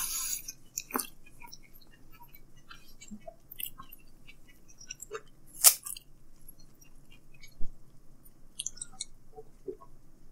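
A person chewing thin-crust pizza close to the microphone: soft, scattered mouth clicks and small crunches, with one sharper click about halfway through.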